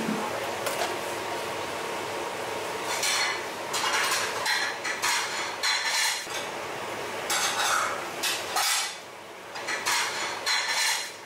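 Metal utensils clinking and scraping against dishes in a run of short bursts, starting about three seconds in, over a steady background hiss.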